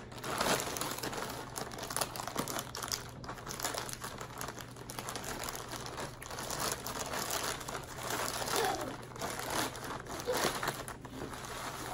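Green plastic mailer bag crinkling and rustling in irregular crackles as hands pull and work it open.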